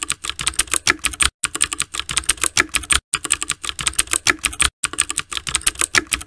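Computer keyboard typing sound effect: rapid key clicks, about ten a second, in four runs broken by brief pauses.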